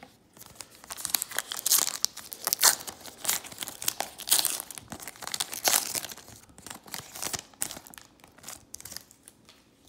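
Foil wrapper of a 2018 Donruss baseball card pack being torn open and crumpled: a dense run of sharp crinkling crackles that thins out near the end.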